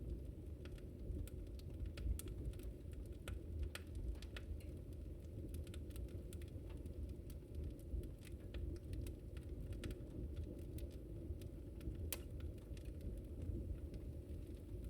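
Wood fire crackling, with many irregular sharp pops and snaps over a low, steady rumble of burning. A louder pop comes about two seconds in, and another near twelve seconds.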